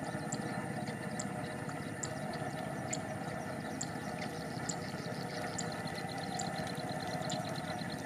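A steady, finely pulsing drone, as from a motor running nearby, with a faint high tick about once a second and a fast run of high chirps near the end.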